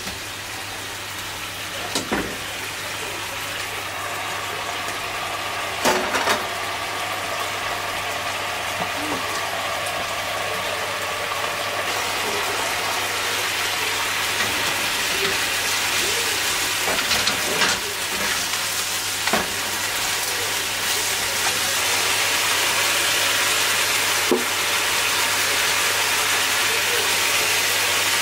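Broth with mackerel and vegetables simmering and sizzling in a nonstick frying pan, the bubbling growing steadily louder. A plastic spatula stirs it, with a few short knocks and scrapes against the pan.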